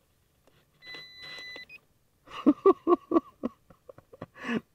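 A single steady electronic beep from the RC radio transmitter lasting just under a second, followed by a quick run of about six louder short pulsing sounds and one more near the end.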